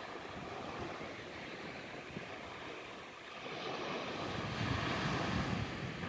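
Small waves breaking and washing up on a sandy beach, a steady rush that swells louder about three and a half seconds in, with wind buffeting the microphone.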